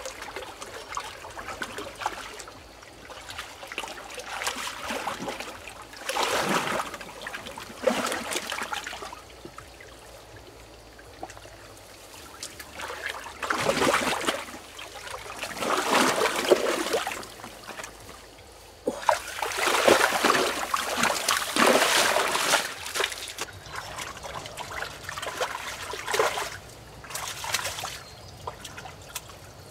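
Shallow water splashing and trickling in irregular bursts, with a longer, louder spell of splashing past the middle.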